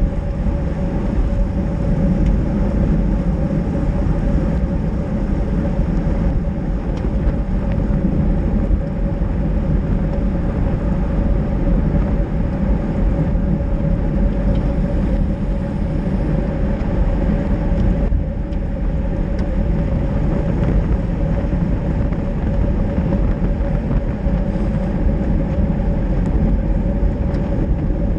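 Constant wind rush over the microphone of an action camera on a moving road bike, mixed with the hiss of tyres on a wet road and a steady hum underneath.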